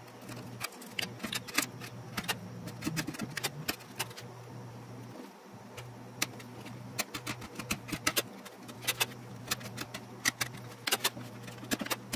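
Wood chisel pressed by hand into the end of a router-cut groove in plywood, squaring the round end: an irregular run of small sharp clicks and cuts, several a second, with a short lull midway.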